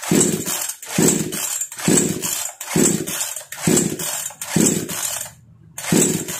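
A 58 cc two-stroke chainsaw's recoil starter is pulled seven times, about once a second with a short pause near the end. Each pull turns the engine over with a whirring rasp, and it never fires: the saw will not start even with a new spark plug fitted.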